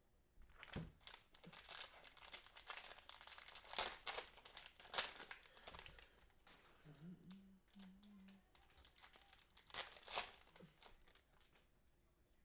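Cellophane wrapper of a football trading-card cello pack being torn open and crinkled, in a string of crackles, loudest in a few sharp bursts.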